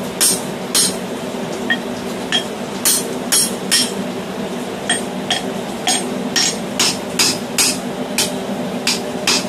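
Hand hammer striking a steel drift through the hot eye of a forged hammer head on the anvil, drifting the handle hole to size. Sharp metallic blows come about two a second with brief pauses, over a steady low hum.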